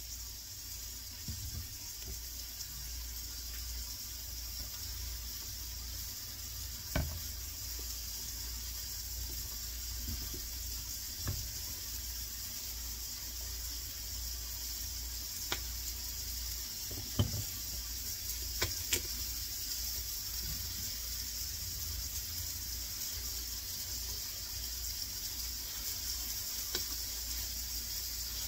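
Steady hiss in the kitchen, with a handful of short light knocks and taps, the loudest about seven seconds in and again near the middle.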